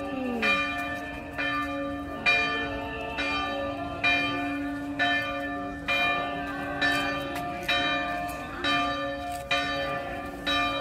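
Church bell tolling in steady strokes, about one a second, each stroke ringing on into the next.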